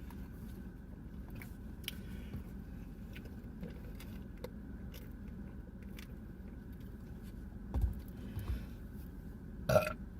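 A person chewing and biting into a sandwich, with small scattered mouth clicks, over a steady low car-cabin rumble; a couple of low thumps come about eight seconds in and a short louder sound just before the end.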